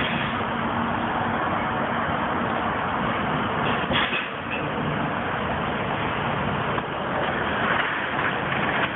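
Semi truck's diesel engine idling steadily with a low hum, with a few light knocks near the end.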